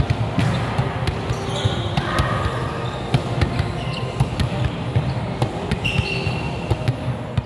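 Volleyball rally in a large, echoing gym: a series of sharp smacks from the ball being hit, with short high squeaks of shoes on the court and a steady low hall rumble underneath.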